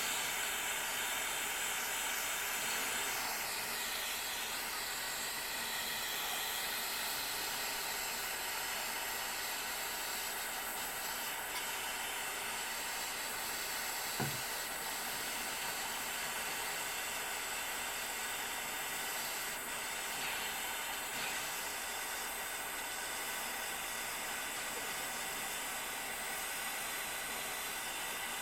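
Soldering torch flame hissing steadily while heating a silver ring to flow the solder, with one faint tap about halfway through.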